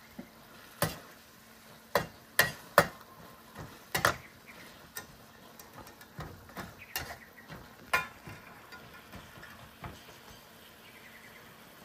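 A metal spatula and tongs knock and scrape against a steel wok during stir-frying: a string of irregular sharp clinks over a faint sizzle.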